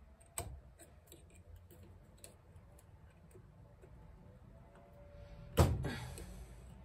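Pliers and a steel retaining clip being worked into a master cylinder bore: scattered small metallic clicks and scrapes, a sharp click about half a second in, and a loud metallic snap about five and a half seconds in that rings briefly.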